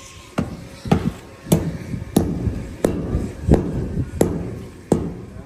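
Hammer blows struck in a steady rhythm, about nine strikes roughly two-thirds of a second apart, each with a short ring.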